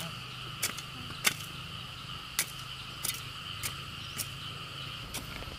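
A hand hoe chopping into dry, stony soil, about seven sharp irregular strikes. Under it, a steady high-pitched chorus of crickets or other insects.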